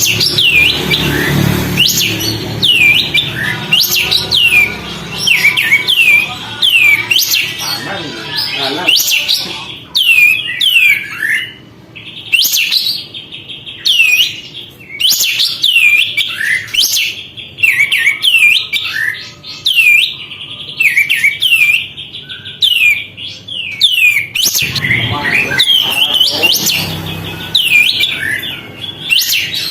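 Kapas tembak songbird singing vigorously: a fast, continuous run of short, sharp, downward-sweeping chirps, several a second.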